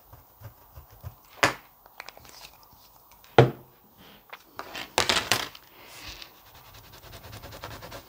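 Clear acrylic stamp block and a stamp-cleaner bottle handled on a cutting mat: two sharp knocks, the second and louder about three and a half seconds in. From about five seconds in comes a rough scrubbing as the stamp is rubbed clean on a stamp-cleaning pad, fading to a softer rubbing.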